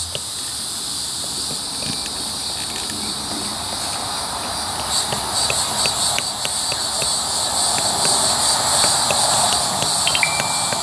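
Crickets chirring steadily at a high pitch, pulsing more strongly from about halfway, over a constant hiss. Scattered faint ticks come as the hot tip of a wood-burning tool melts into the plastic kayak hull.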